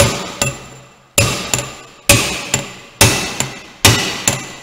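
Hammer blows on a metal seal driver, driving a new single-lip thermostat seal home into the bore of a Detroit Diesel Series 60 thermostat housing. There are five hard strikes about one a second, each followed by a lighter rebound tap and a brief metallic ring.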